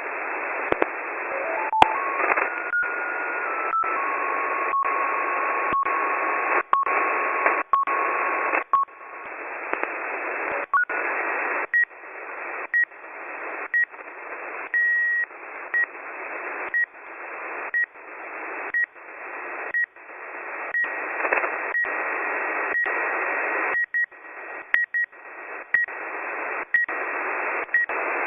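Shortwave radio receiver static through a narrow sideband filter, cut by brief dropouts about once a second. Whistling carrier tones sound over it: a few rising pitch steps in the first seconds, a steady whistle for about five seconds, then short repeating beeps at a higher pitch.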